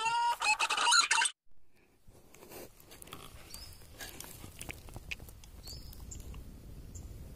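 A cat's loud meow, rising in pitch and then held, cut off abruptly about a second in. After it, faint outdoor background with a few soft high chirps and ticks.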